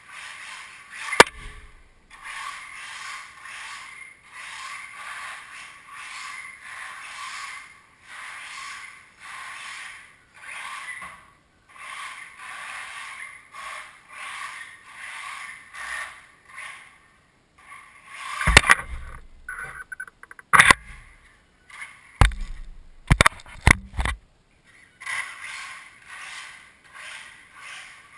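Losi Mini 8ight electric RC buggy running in short throttle bursts, a hissing drive noise rising and falling about once a second. There is a sharp knock about a second in, and a cluster of loud knocks and bangs between about 18 and 24 seconds.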